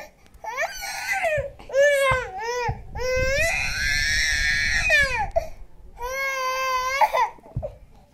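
Toddler crying in an angry tantrum: four or five drawn-out wails with short breaks between them, the longest and harshest about three seconds in.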